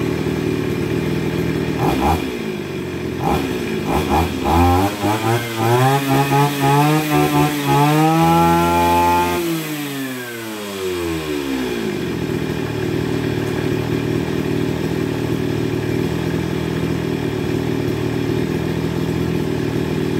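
Tanaka 368 brush cutter's 36cc two-stroke engine (38 mm bore) idling, blipped twice, then revved up in several surges to full speed. It is held there briefly, and the throttle is released at about nine and a half seconds, so the engine winds smoothly back down to a steady idle.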